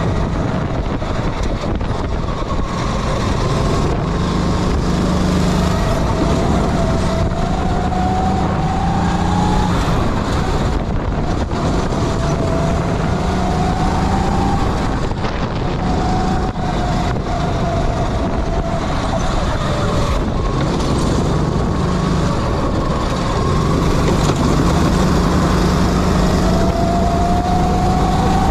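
Kart engine running hard on a lap, its pitch rising over a few seconds as the kart accelerates and dropping back as it slows, several times over, with road and wind noise beneath.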